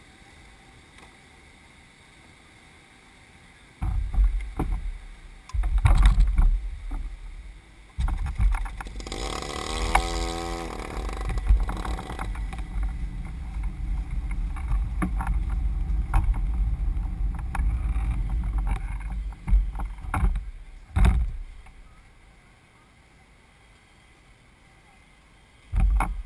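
A go-kart being pushed by hand over pavement, its rolling and jolts coming through the kart-mounted camera as a heavy low rumble with several knocks and thumps. There is a brief wavering tone about ten seconds in.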